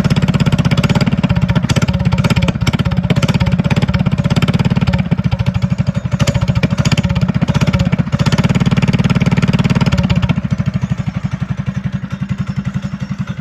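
Trailmaster Hurricane 200X mini bike's 196cc single-cylinder four-stroke engine running with a stage 1 kit (aftermarket exhaust, air filter and jet). It runs loud and steady, then drops somewhat quieter about ten seconds in.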